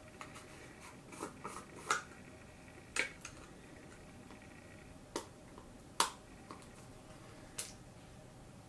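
A loose-powder cosmetic jar being handled and opened: scattered light clicks and taps, about half a dozen, the sharpest about six seconds in.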